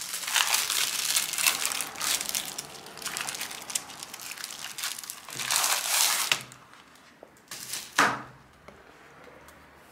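Clear plastic wrapping crinkling and rustling as a sheet of adhesive magnetic sheeting is handled and pulled out of it, dense for about six seconds, then quieter, with one sharp crackle about eight seconds in, the loudest moment.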